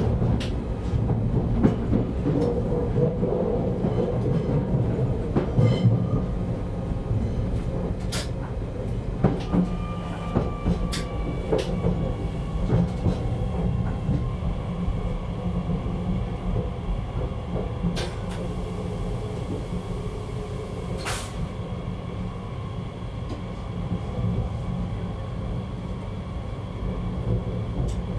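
Z50000 electric multiple unit rolling slowly over the switches of a station approach: a steady low rumble with frequent wheel clicks and knocks over the pointwork, thinning out in the second half to a few single knocks. A faint whine falls slightly in pitch midway.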